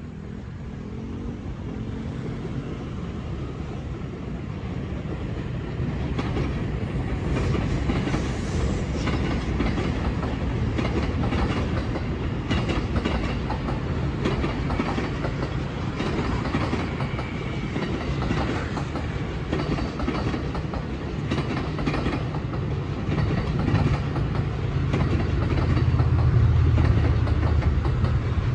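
Electric commuter train running slowly over the station tracks, a steady low rumble with its wheels clacking over rail joints and points. The sound builds over the first few seconds and is loudest near the end.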